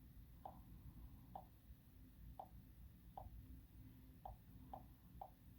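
Near silence: a faint low hum with soft, irregularly spaced ticks, about seven of them.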